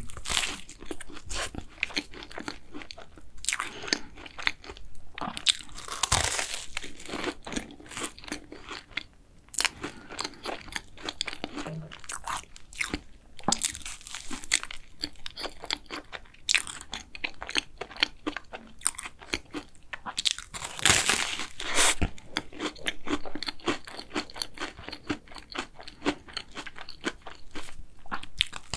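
Close-miked eating of cookie choux, cream puffs with a crisp cookie crust and soft cream filling: crunchy bites and wet chewing, with a few louder crunches spread through.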